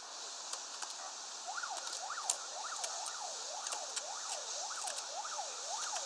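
A siren in a fast yelp: its pitch sweeps up and down roughly every half second, starting about a second and a half in. Steady hiss and scattered sharp clicks lie beneath it.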